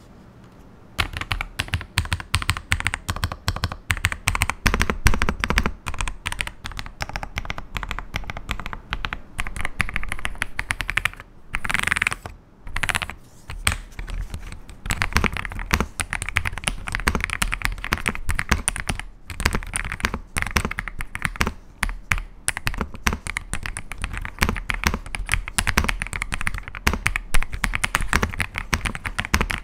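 Typing on an AJAZZ AK870 mechanical keyboard: a fast, dense run of key clacks that starts about a second in and goes on with a couple of brief pauses.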